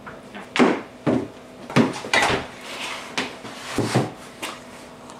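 Black weight plates being set down one after another on a package-tray board, a series of about seven clunks and knocks with some scraping between them.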